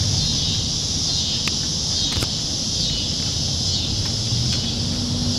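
Steady high-pitched insect chorus, as of evening cicadas or katydids, over a low rumble.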